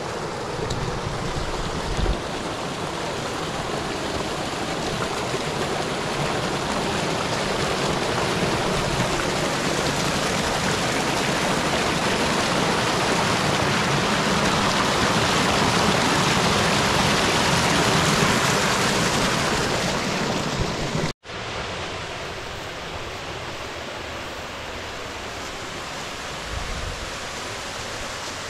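Creek water rushing over rocks in a small cascade, a steady hiss that grows louder for most of its length. About two thirds of the way through it cuts off abruptly and gives way to a quieter, steady sound of a waterfall pouring into a pool.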